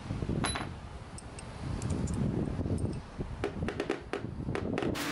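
Light metallic clicks and taps of thin metal rods knocked against each other, a dozen or so short ticks that bunch up near the end, over a steady rumble of wind on the microphone.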